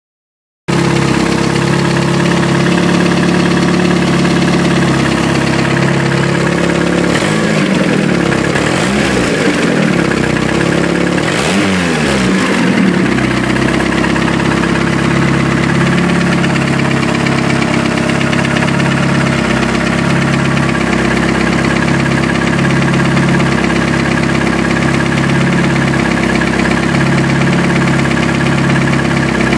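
Chrysler 420A turbocharged 2.0 L four-cylinder engine idling steadily, carrying a persistent noise that began after the engine overheated and remains despite new lifters and fresh oil; the rod bearings checked out fine and the crankshaft has no play. The engine sound starts about half a second in, and its tone wavers for a few seconds around the middle.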